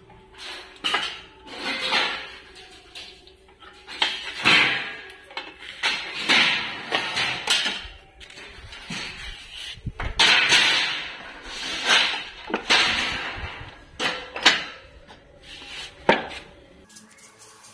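Metal parts clinking, knocking and scraping as a brake master cylinder is handled and fitted against its steel mounting bracket on the buggy frame: irregular clanks and rattles, some sharp, some dragged.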